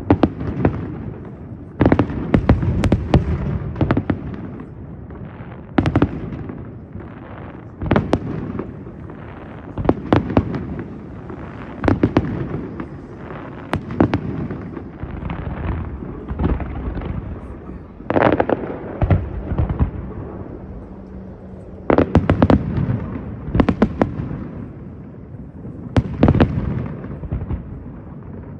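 Aerial fireworks shells bursting, a loud bang about every two seconds, sometimes two or three in quick succession. Each bang trails off in a long low rumble.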